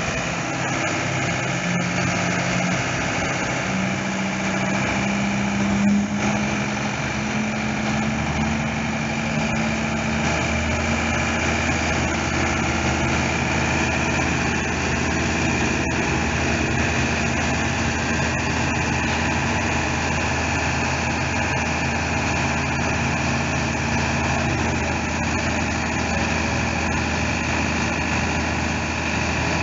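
Mercedes-Benz Atego 1422 aerial ladder truck's diesel engine running steadily, powering the hydraulics while the 32 m ladder retracts and lowers. The hum deepens and fills out about eight to ten seconds in.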